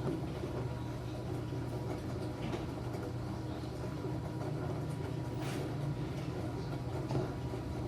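Small Enxuta Júnior 2 kg washing machine running, its motor giving a steady low hum with a faint steady whine and a few light clicks.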